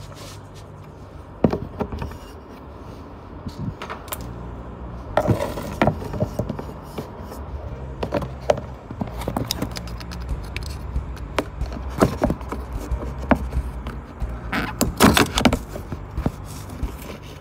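Background music with a low bass line stepping between notes, over frequent sharp clicks and knocks. The loudest knocks come in a cluster about three-quarters of the way through.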